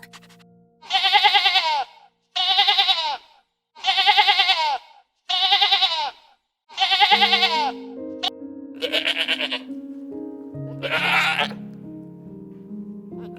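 Bleating: five high, quavering bleats about a second apart, then two more over background music that comes in about halfway through.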